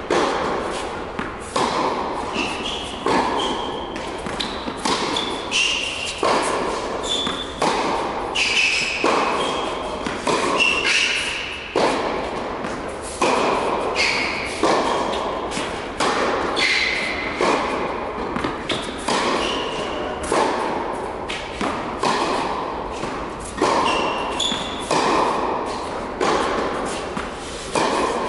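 Tennis balls struck by rackets and bouncing on an indoor hard court during a baseline rally: sharp pops about every second, each ringing out in the big hall's echo, with short high shoe squeaks between hits.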